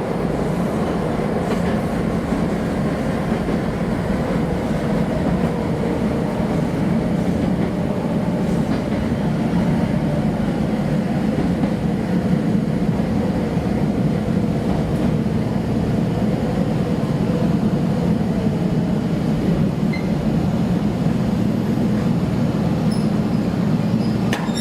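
Kobe Electric Railway train running, a steady low rumble.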